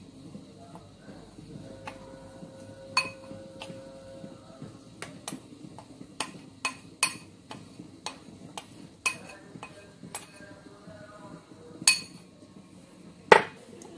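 Metal spoon clinking and scraping against mixing bowls as flour is spooned from one bowl into another: about a dozen irregular sharp clinks, the loudest near the end.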